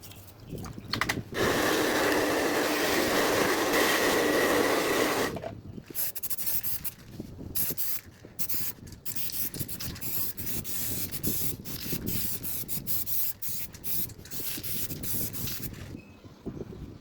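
Abrasive cleaning of the rusty mini ceiling fan's metal parts: a steady hiss for about four seconds, then irregular back-and-forth rubbing strokes that stop near the end.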